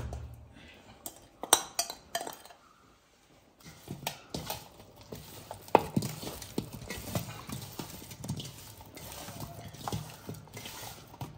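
A metal spoon clinking and scraping against a bowl a few times as thick sauce is scooped out, then from about three and a half seconds in, hands tossing cut pieces of corn on the cob in a stainless steel pot, a steady rustle with many small knocks of corn against the metal.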